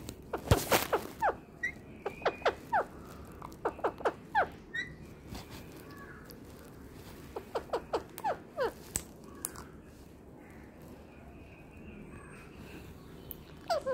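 Parakeets giving short, squeaky chirps in quick runs of several, each dropping in pitch, with a quieter stretch a little past the middle.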